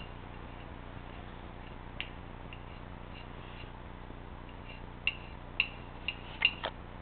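Fork clinking against a plate while eating: one light click about two seconds in, then a quick run of sharper clinks near the end.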